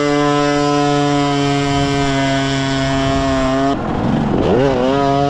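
Dirt bike engine running at a steady pitch under light throttle, then the throttle is rolled off about three and a half seconds in and the note dips and climbs back up as it is opened again.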